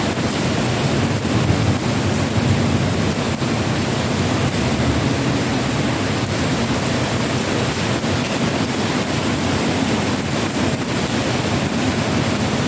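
Heavy rain pouring down: a loud, steady, dense hiss.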